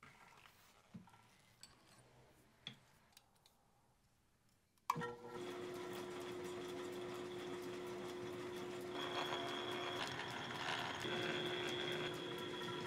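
A few faint knocks and clicks as a leather flat belt goes onto the cone pulley of a 1910 W.F. & J. Barnes 20-inch drill press. About five seconds in comes a sharp clack, then the press runs: a steady mechanical hum with a faint high whine and the fine rapid clatter of its gears.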